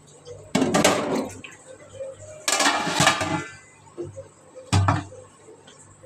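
Metal pots and kitchen utensils clattering in three short bursts about two seconds apart.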